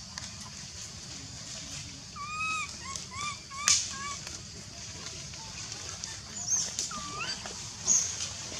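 A baby macaque crying in short, arching high-pitched coos: a quick string of them about two seconds in and another pair about seven seconds in. These are the calls of an infant wanting its mother. A steady high hiss runs underneath, and one sharp click falls in the middle of the first string.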